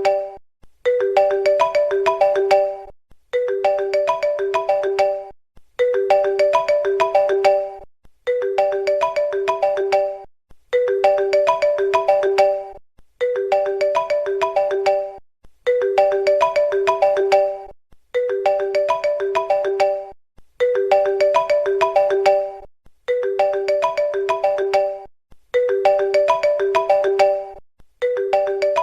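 Phone ringtone: a short melody of bright, clear notes that loops about every two and a half seconds, with a brief pause between repeats.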